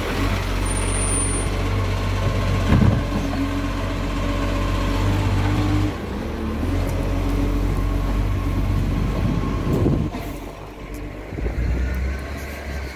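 Side-loader garbage truck's diesel engine running as the truck moves along the street, with a single knock about three seconds in. The engine sound drops away after about ten seconds.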